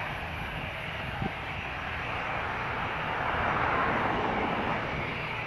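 Aircraft engines running, a steady rush with low rumble that swells about three to four seconds in. A brief knock about a second in.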